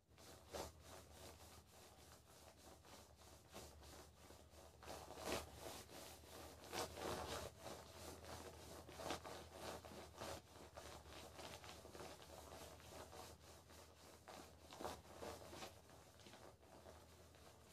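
Faint, irregular rubbing and scraping as a hot glue gun's metal nozzle is worked over the plastic back of a smartwatch, spreading glue around the charger magnets, with a low steady hum underneath.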